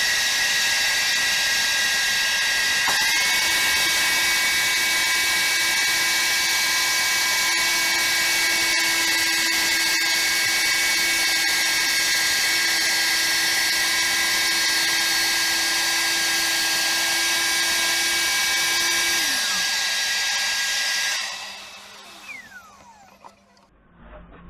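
Electric power saw running steadily through a long cut with a high whine. About 19 to 21 seconds in it is switched off, and the motor's pitch falls away as the blade spins down.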